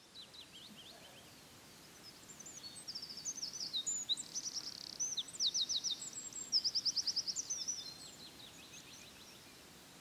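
Small songbirds chirping and singing quick trills over a steady background hiss, busiest in the middle and thinning out near the end.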